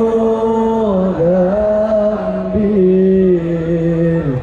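Sholawat chanted by a male voice in long, drawn-out held notes, the pitch dipping briefly about a second in and again just before the end.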